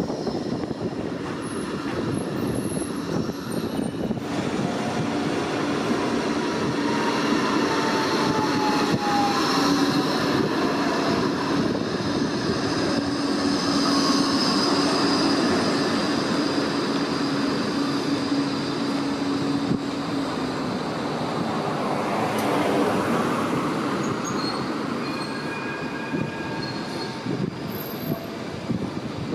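Bombardier Flexity 2 trams running past on street track. A steady hum and a falling whine come as a tram goes by, along with high squealing from the wheels on the rails.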